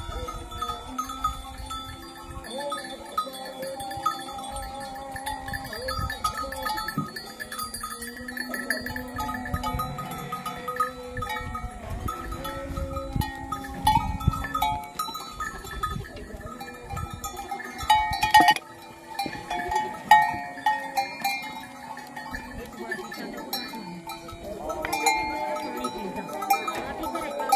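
A herd of goats bleating as they walk, with bells on the animals clanking and ringing, and a couple of louder knocks about two-thirds of the way in.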